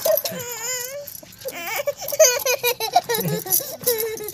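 A small child's high-pitched voice, wordless vocalizing that wavers up and down in pitch, in fits through the whole stretch.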